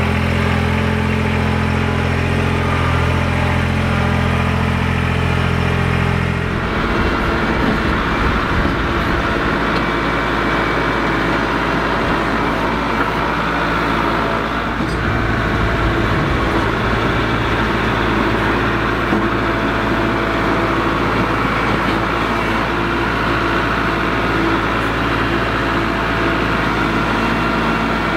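A Kubota BX23S compact tractor's three-cylinder diesel engine running steadily. About six and a half seconds in it cuts to a Kubota MX5400 tractor's diesel running under load as its front loader bucket pushes up a pile of sod.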